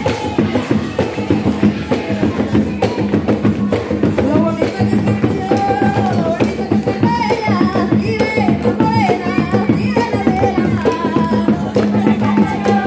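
Panamanian tamborito: hand drums beating a fast, dense rhythm, with a lead voice singing a melody over them from about four seconds in.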